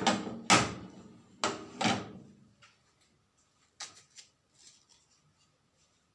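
Metal kitchen cookware knocking and clanking as it is handled: four loud knocks with a short ring in the first two seconds, then two lighter clicks.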